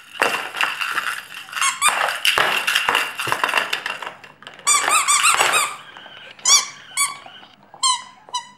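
Spiky rubber squeaky toy ball squeezed over and over. First comes a few seconds of fast, wheezy squeaking, then short separate squeaks that rise and fall in pitch, a quick run of them about five seconds in and single ones towards the end.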